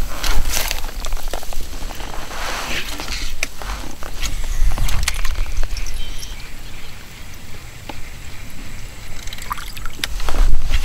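Kayak paddle working the water, with sloshing and water trickling off the blade in a couple of swells and scattered small clicks, over a low rumble.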